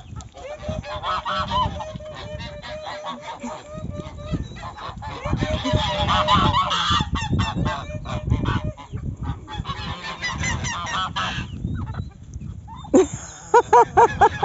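Domestic geese honking among a farmyard flock of chickens and turkeys, with a run of loud honks near the end.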